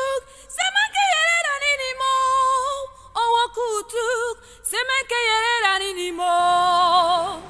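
A woman singing unaccompanied: a melody in short phrases broken by brief pauses, with bending pitch, ending on a long wavering held note.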